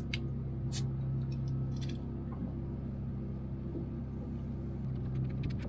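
A beer bottle cap pried off with a bottle opener, one sharp click about a second in amid a few small clinks, then a faint hiss of beer being poured from the bottle about four seconds in. A steady low hum runs underneath throughout.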